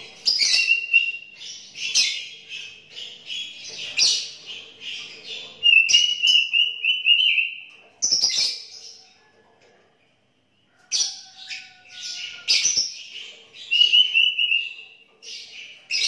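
Sooty-headed bulbul singing: quick runs of bright chirps and short whistled trills, with a pause of about two seconds in the middle.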